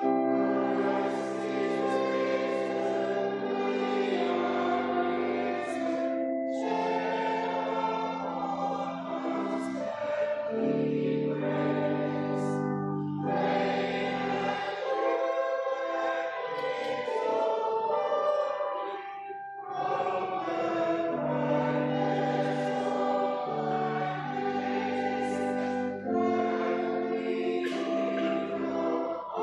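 Church choir singing, in long held phrases with short breaks between them.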